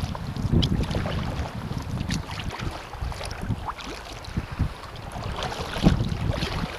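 Wind buffeting the action camera's microphone in gusts, with water splashing and lapping around a kayak.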